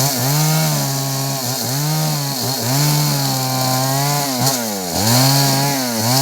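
Two-stroke chainsaw cutting into wood. The engine pitch sags and recovers every second or so as the chain bites and frees, over a steady hiss of cutting.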